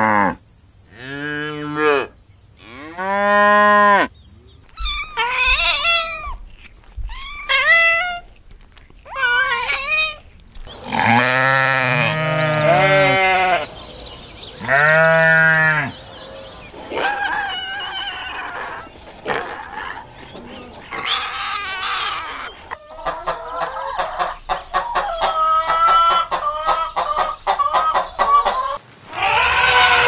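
Cattle mooing a few times in the first four seconds, then sheep bleating over and over, in short, higher-pitched calls.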